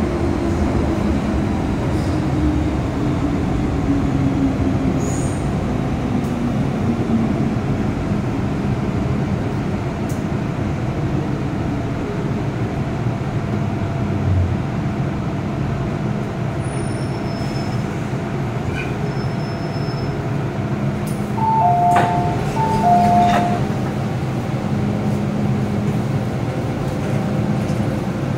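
Interior of an MTR M-train subway car running and pulling into a station: a steady rumble of wheels and traction motors, with a motor whine falling in pitch over the first several seconds. About three-quarters through, a two-note chime sounds twice, with a few clicks, as the doors open.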